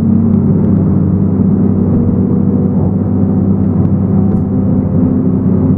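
Diesel engine of a tracked tree-felling machine running steadily at constant speed, with a few faint clicks.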